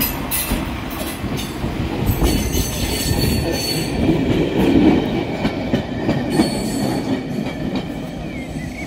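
Rail vehicles rolling along the track and over points: a steady low rumble with irregular clicks and clacks of wheels over rail joints.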